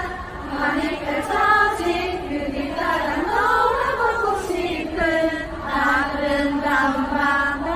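A group of voices singing a chant-like melody together, phrase after phrase.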